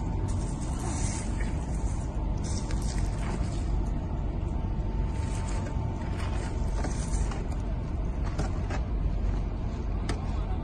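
Spade scooping and scraping manure in a metal wheelbarrow, a few separate scrapes and rustles over a steady low rumble.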